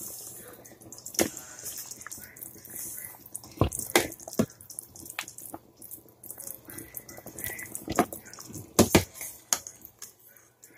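Broth dripping and splashing as a ladle of beef shank and bone is lifted from a stainless steel stockpot and stirred back in, with several sharp clinks of the metal ladle against the pot.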